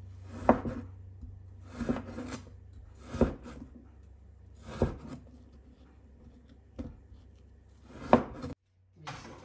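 Chinese cleaver slicing through raw pork belly onto a wooden cutting board: about six unhurried cuts, each a short rasp ending in a knock on the board.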